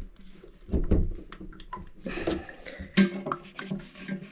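Knocks and clicks of hand tools and plumbing fittings being worked at a toilet's supply connection in a tight space, with a cluster of knocks about a second in and a sharp click about three seconds in.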